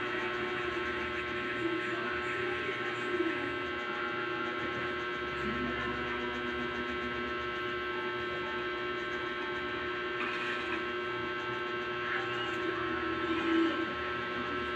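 A steady electrical hum made of several held tones, with a few faint knocks and rustles.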